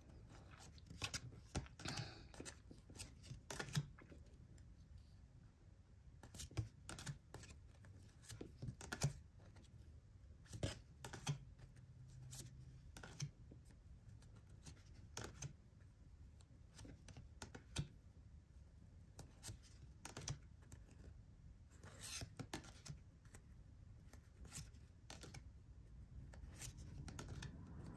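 Glossy oracle cards being flipped through one by one in the hands, with faint, irregular clicks and slides as each card is moved.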